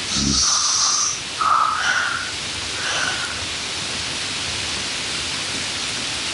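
A steady rushing noise runs throughout, with several short, high-pitched calls or squeaks in the first three seconds and a brief low thump right at the start.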